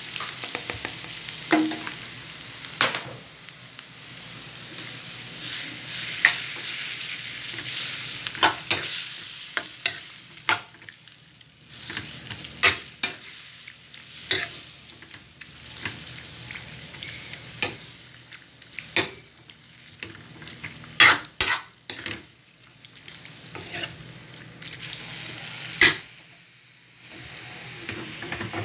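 Thin pork slices frying in hot oil in a metal wok, sizzling, while a metal spoon stirs them and scrapes and clinks against the pan in irregular sharp taps. The sizzle is loudest at the start and swells again near the end. The loudest clinks come about two-thirds of the way through.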